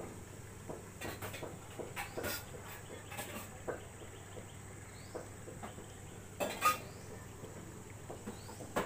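Scattered clinks and clatters of dishes and cutlery, with a louder clatter about six and a half seconds in.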